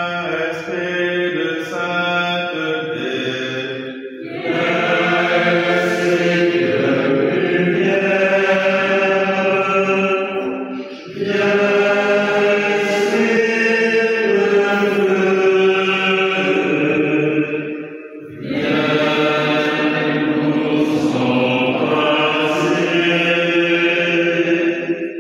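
A group of voices singing a slow, chant-like hymn in long held phrases, with short breaks for breath about every seven seconds; the first short phrase is quieter, then the singing grows louder.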